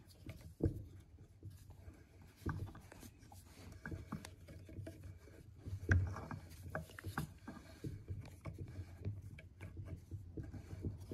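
Scattered light metal clicks and scrapes as a round nut on a transmission's output shaft is turned off with a pliers-type tool set in its holes, with a sharper click about six seconds in.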